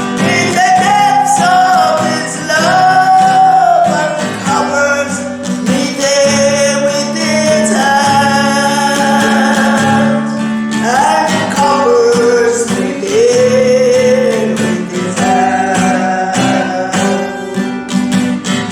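A hymn sung to acoustic guitar accompaniment, with long held sung notes over strummed chords.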